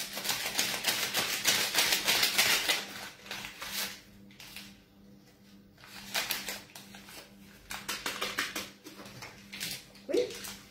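A paper sachet of baking powder crinkling and being torn open in a quick run of crackles for the first three seconds, then lighter, scattered rustles and taps as it is shaken out into a flour sieve.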